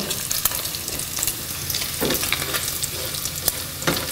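Chopped smoked bacon sizzling and popping in a frying pan as it renders its fat, stirred a few times with a silicone spatula.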